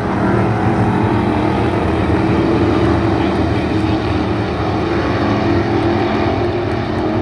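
A pack of dirt-track race cars running together around the oval, their engines blending into a loud, steady sound made of several overlapping pitches.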